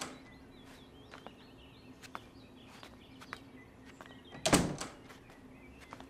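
A door bumping or shutting once, a single short knock about four and a half seconds in, with a few faint light ticks around it.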